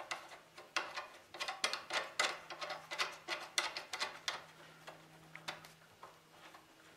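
Nuts and lock washers clicking on steel bolts as they are spun on by hand through a table leg's metal corner bracket. A quick run of small metallic clicks thins out and fades after about four and a half seconds.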